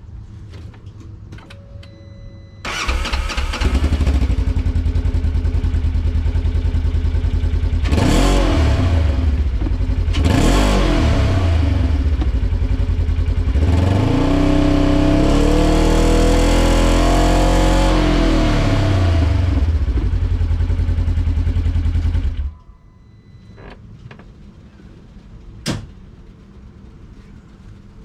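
Stock exhaust of a 2015 Polaris RZR 900's twin-cylinder engine. It starts about three seconds in and idles, takes two quick throttle blips, then a longer rev that rises and falls over several seconds. It settles back to idle and is shut off near the end, followed by a single sharp click.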